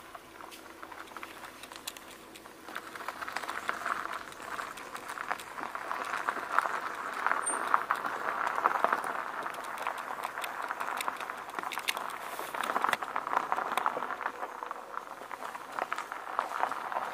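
Dry leaf litter and undergrowth crackling and rustling under footsteps, getting louder after about three seconds.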